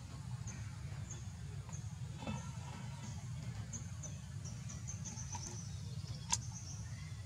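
Outdoor ambience by a pond: a steady low rumble with faint, high, short chirps repeating about twice a second, a brief call about two seconds in, and one sharp click about six seconds in.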